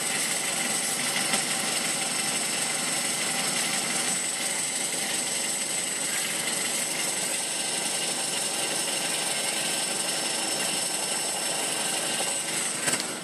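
Ford Focus engine running, with an abnormal chattering noise from under the engine that turned out to come from the aftermarket exhaust front pipe. The sound drops away with a few knocks near the end.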